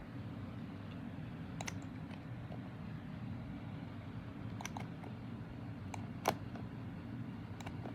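Hurricane 20-inch box fan running with a steady low motor hum. Several light, sharp clicks sound over it, the loudest about six seconds in.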